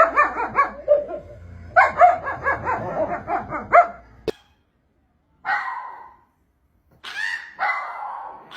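A dog barking and yipping in two fast runs of short, high calls, then after a sudden cut a few more short dog calls.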